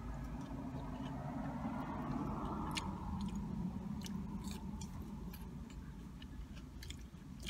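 A person chewing and biting fast food, with mouth noises and a few sharp clicks, over a steady low hum.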